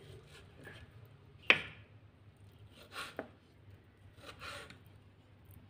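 Kitchen knife cutting raw chicken breast on a wooden cutting board: a sharp knock of the blade on the board about a second and a half in, fainter cuts around three seconds, and a longer, softer scraping cut a little later.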